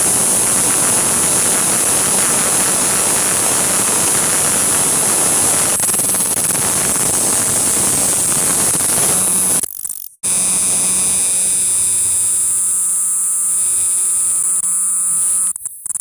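Cicada singing close to the microphone: a loud, unbroken, high-pitched buzz. It cuts out briefly about ten seconds in, comes back, then turns choppy near the end.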